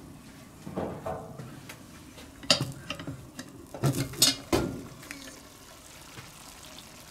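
Metal clinks and knocks of a lid lifter on a cast-iron Dutch oven's lid as it is lifted off, with a cluster of clanks and one heavier knock about four and a half seconds in.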